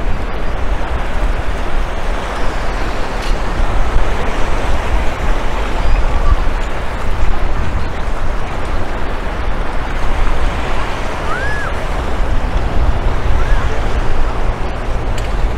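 Steady rush of surf on a beach, with a strong low rumble of wind on the microphone.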